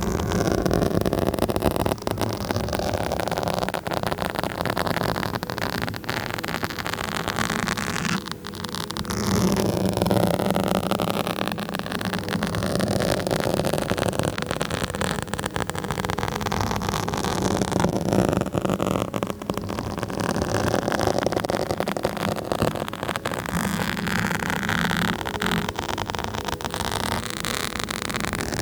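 Fingers scratching and rubbing directly on a microphone: a continuous dense crackling scrape, close and loud, swelling and easing in waves with a brief lull about eight seconds in.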